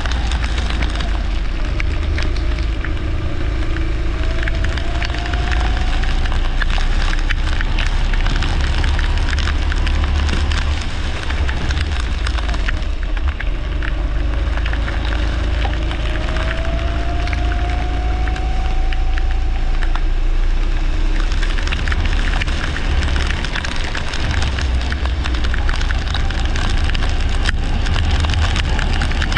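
Leisure kart racing on a wet track, heard close up: a loud, steady rush and crackle of wind and spray with a deep rumble underneath. Twice, the engine's note rises faintly and slowly as the kart accelerates down a straight.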